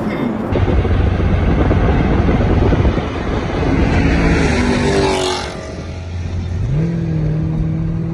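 Chevrolet Camaro 1LE's 6.2-litre V8, fitted with a C8 Corvette intake manifold, in a full-throttle pull: the engine note rises steadily, then drops away about five seconds in. Near the end a steady, lower engine drone of a car cruising takes over.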